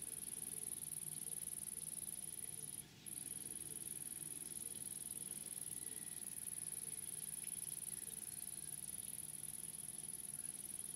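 Steady high-pitched insect trill, like a bush cricket singing continuously, with one brief pause about three seconds in.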